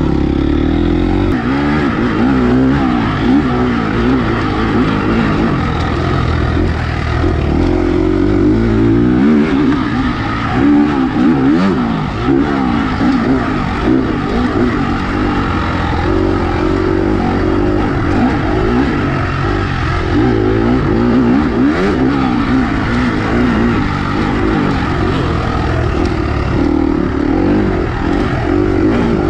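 Dirt bike engine heard close up from on board while riding an enduro trail. It runs continuously, its pitch rising and falling over and over with throttle and gear changes.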